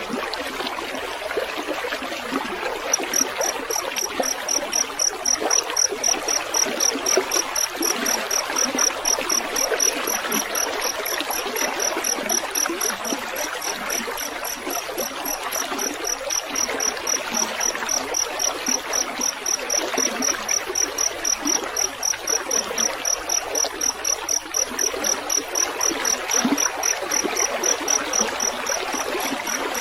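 Water trickling and babbling in a small stream, with a field cricket chirping in a fast, even trill of high-pitched pulses that starts about three seconds in.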